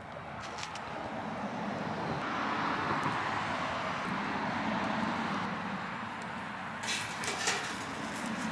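Metal clicks of a wire grill basket holding chicken wings: one click in the first second, then a few sharp clinks about seven seconds in as the basket is set on the rim of a firepit, over a steady background noise.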